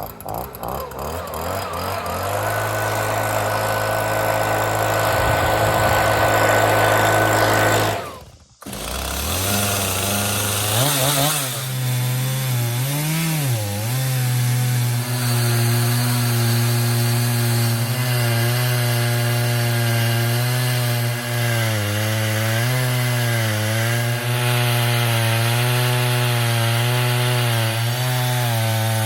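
Two-stroke chainsaw at full throttle on an Alaskan chainsaw mill, ripping lengthwise through a pine log. It builds up over the first couple of seconds, drops out suddenly for a moment about eight seconds in, then comes back and runs steadily, its pitch wavering as the chain works through the wood.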